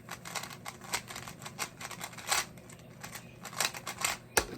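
Irregular light plastic clicks and rattles as Rubik's cubes are handled, with one sharper click near the end.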